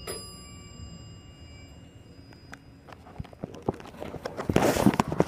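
Elevator chime dings once, its ringing tone fading over a few seconds. Then footsteps tap on a hard floor, louder toward the end.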